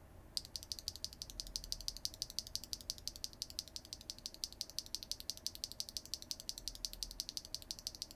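BSUN Ocean Tactile mechanical keyboard switch, LY stem in a polycarbonate top and nylon bottom housing, actuated rapidly out of a keyboard, giving a fast, even run of sharp clacks about ten a second. The clacks are pretty clacky.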